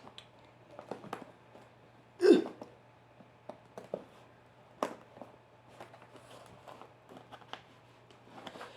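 Scattered light clicks and taps of a keyboard's cardboard box and packaging being handled and opened. About two seconds in there is one short, louder vocal sound, like a hiccup or grunt.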